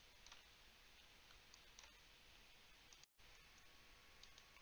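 Near silence: faint room hiss with a few soft computer mouse clicks.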